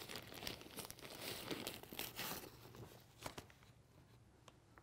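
White fabric-like plastic wrapping crinkling and rustling as it is pulled off a camcorder, dying away after about two and a half seconds, followed by a few light clicks.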